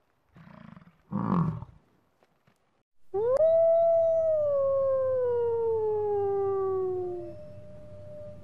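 Bison grunting twice, low and short, the second grunt louder. Then a grey wolf howls: one long howl that rises and slowly falls in pitch, followed near the end by a second, fainter howl that also sinks.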